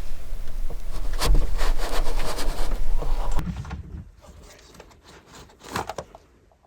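Scraping and rustling handling noise over a low wind rumble on the microphone, then it drops away suddenly after about three and a half seconds to a few soft knocks and one short rustle near the end.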